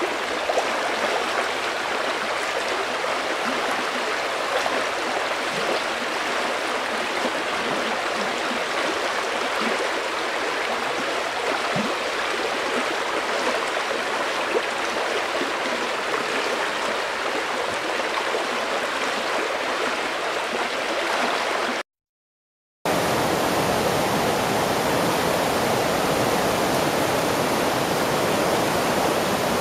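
River water flowing over rocks in a steady, continuous rush. About 22 seconds in, it cuts to a second of silence, then a second river recording starts with a fuller, heavier rush.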